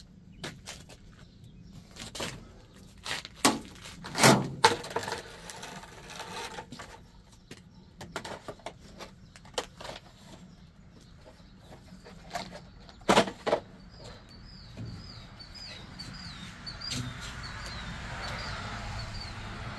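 Scattered knocks and clatters, the loudest a pair about two-thirds in, then a bird chirping over and over in quick short notes through the last few seconds.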